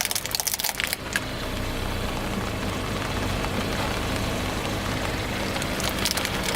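Car tyre rolling over and crushing crunchy objects: a burst of cracking and snapping in the first second and again near the end, over the steady running of the car's engine.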